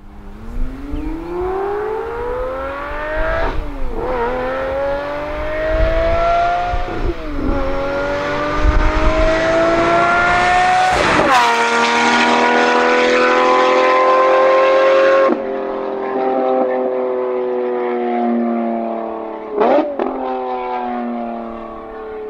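Lamborghini Murcielago LP640 Roadster's V12 with an Fi exhaust accelerating hard past, its pitch climbing through three quick upshifts, the last with a sharp crack. About 15 seconds in it lifts off and the note drops and fades as the car drives away, with a short rev blip near the end.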